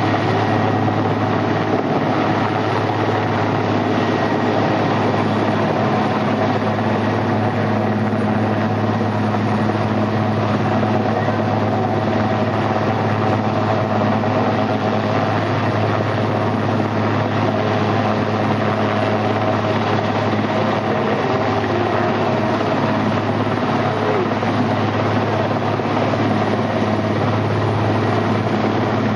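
Aérospatiale SA 330 Puma helicopter hovering, its rotor and twin turbines running steadily with a low hum.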